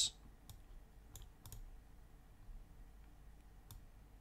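A handful of faint, scattered clicks from a computer mouse and keyboard as a text file is edited.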